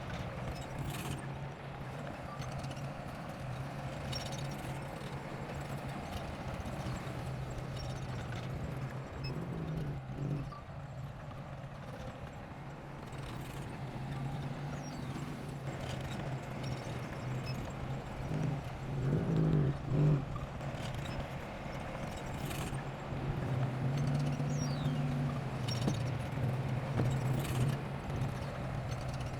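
Bulldozer's diesel engine running steadily with a clatter, probably from its tracks, and a louder surge of engine load a little past the middle.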